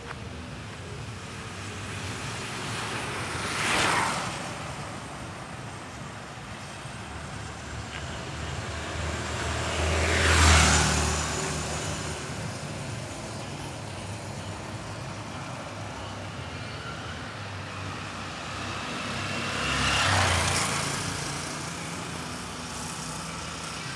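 Street traffic with three vehicles passing close by one after another, each swelling and then fading. The loudest, about ten seconds in, carries a deep engine rumble.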